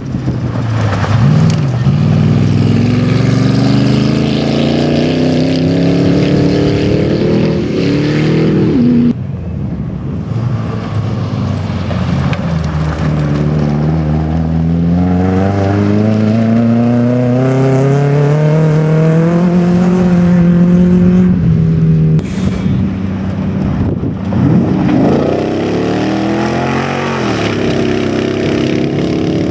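Off-road competition cars driving hard, one run after another. Each engine's pitch climbs as it accelerates and drops back at each gear change. Near the end a car sweeps past, its engine note rising and then falling away.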